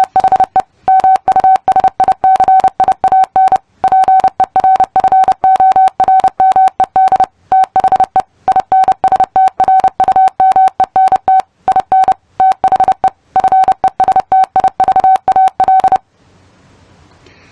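Computer-generated Morse code: a single steady tone keyed rapidly on and off in dots and dashes, sending a long sentence for the listener to copy. It stops about 16 seconds in.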